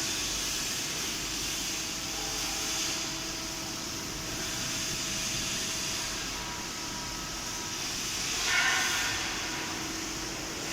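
Steady hum and hiss of CNC press brake machinery running, with a faint steady tone through it. A brief louder hissing swell comes about eight and a half seconds in.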